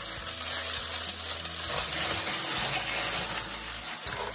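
Tissue paper rustling and crinkling continuously as it is handled to unwrap a parcel.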